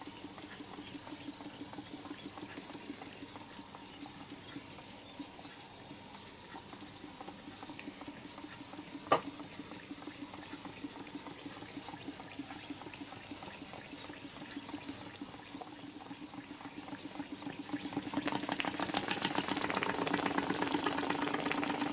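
Bassett-Lowke toy live-steam donkey engine hissing steam with a faint quick ticking, and a single sharp click about nine seconds in. About eighteen seconds in it picks up and runs on its own with fast, even exhaust beats that grow louder.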